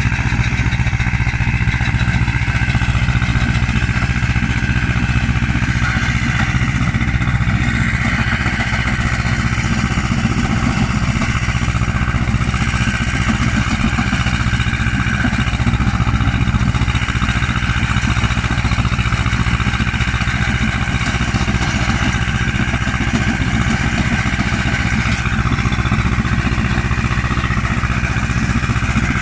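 Stone-crushing machine driven by a tractor, running steadily, with the engine holding a constant pace under load.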